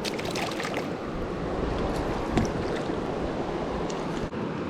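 Steady rush of flowing river water, with a few faint clicks and taps on top.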